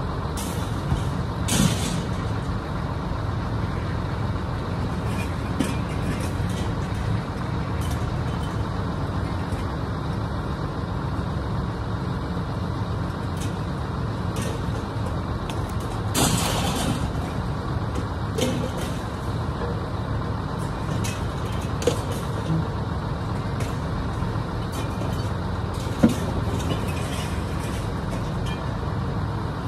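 A vehicle engine running steadily, with a short hiss now and then and a few sharp metal knocks.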